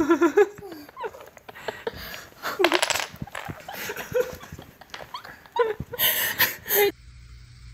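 Wooden Jenga blocks clattering onto a hardwood floor as a puppy knocks the tower over, with people laughing and exclaiming.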